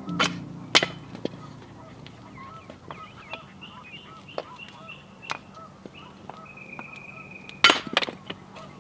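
Hatchet splitting firewood on a wooden chopping block: two sharp chops in the first second and a quick cluster of strikes near the end, with a few lighter knocks between. Birds chirp throughout.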